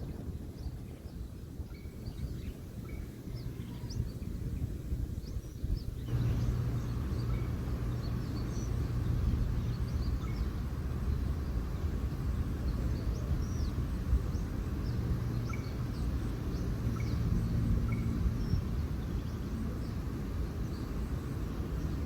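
Outdoor ambience: a steady low rumble of background noise with small birds chirping now and then. The rumble and the chirping step up about six seconds in.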